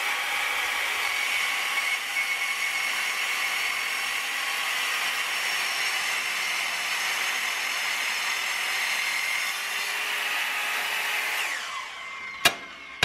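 Handheld circular saw cutting 6 mm steel plate, a steady whine over a harsh grinding hiss. Near the end the blade winds down with a falling whine, and a single sharp drum hit follows.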